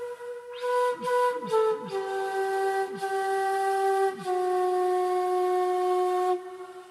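Solo flute playing a slow phrase of held notes that steps downward, pausing briefly for breath near the start and ending on a long low note held about two seconds.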